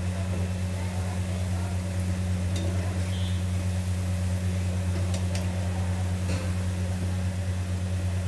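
Potato balls deep-frying in hot oil in a kadhai, a steady crackly sizzle over a constant low hum, with a few light clicks of the slotted spoon turning them.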